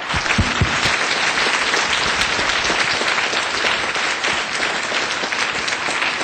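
Audience applauding: many hands clapping in a dense, steady patter that swells in right at the start and holds loud.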